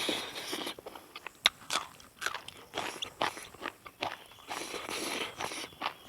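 A person biting and chewing crunchy food, with irregular sharp crunches between softer chewing noises.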